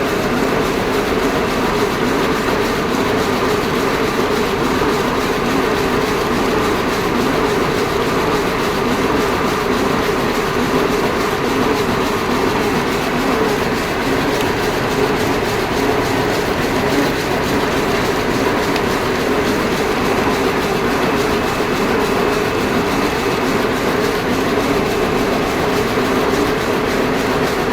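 Freshly repaired machine running steadily with a fast, even clatter, its broken part replaced and the machine set again.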